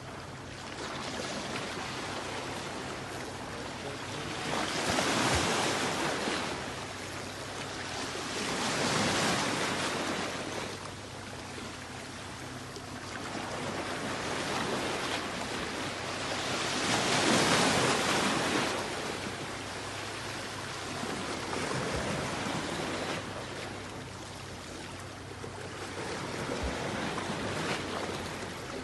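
Small sea waves washing in over shoreline rocks, each surge swelling and draining away every few seconds, the loudest about two-thirds of the way through.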